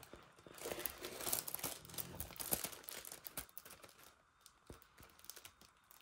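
Plastic film on a diamond painting canvas crinkling and rustling as it is handled, with many small crackles over the first few seconds, then fainter rustles near the end.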